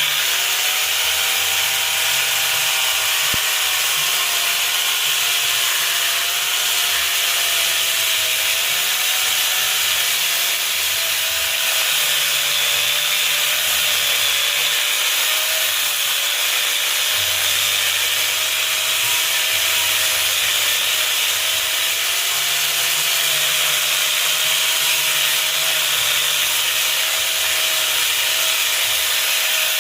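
Mini chainsaw running and sawing through wood, a steady loud buzz with a whine that sags and rises as the chain takes the load.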